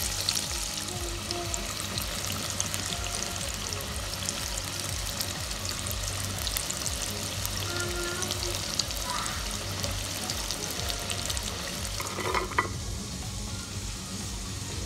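Flour-coated chicken skin deep-frying in hot oil: a steady sizzle full of fine crackling pops. About twelve seconds in there is a brief clatter, and the sizzle thins after it.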